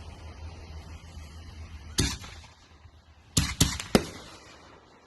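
Consumer fireworks going off: four sharp bangs, one about two seconds in and three in quick succession about a second and a half later.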